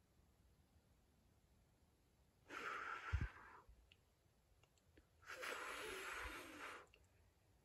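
A cat hissing twice, each hiss a breathy noise lasting about a second, a threat in a standoff between two cats. A short low thump comes during the first hiss.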